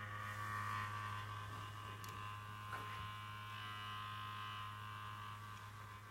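A PC making an abnormal noise: a steady hum with a cluster of steady higher whining tones, getting a little quieter near the end.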